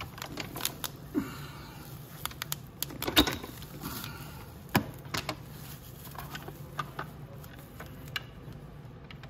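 Hands working a dirt bike's rear shock mount: scattered clicks and knocks of metal and plastic parts, with a louder knock about three seconds in and another near five seconds, and short rustles of the plastic bubble wrap around the shock. A faint steady hum runs underneath.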